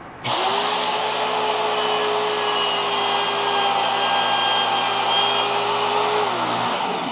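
A router running and taking a very light cut across a wooden sanding drum: a loud, steady motor whine with cutting noise. It spins up just after the start and winds down near the end.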